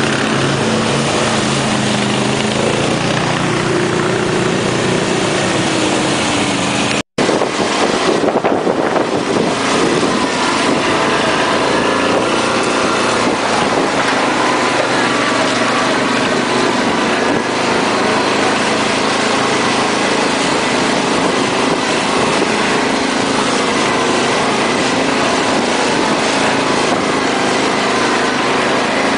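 ATV engine running steadily. About seven seconds in, the sound cuts out for an instant and comes back with a higher engine note.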